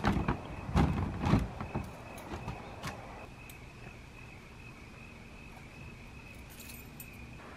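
Items being handled in a car-roof cargo box: a few knocks and clunks in the first second and a half, then a few small clicks, then quiet. A steady thin high-pitched tone runs underneath.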